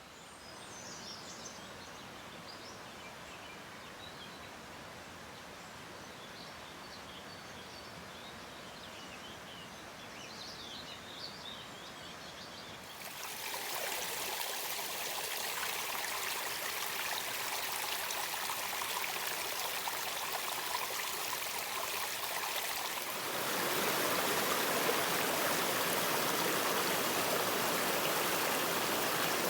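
Birds chirping over a soft outdoor hiss, then an abrupt change about halfway through to steady rushing water, which steps up louder and fuller a few seconds before the end.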